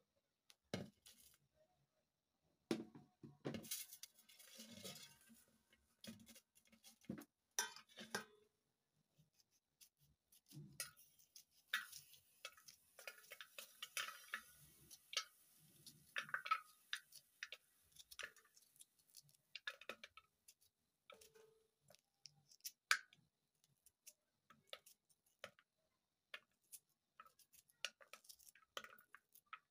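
Faint, irregular clicks and taps of a knife cutting a red onion held in the hand, the small pieces dropping into a metal bowl. A few louder knocks come within the first eight seconds.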